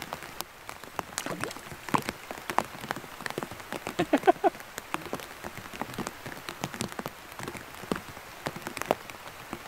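Heavy rain falling, with many irregular sharp taps of drops striking a plastic bag that covers the microphone.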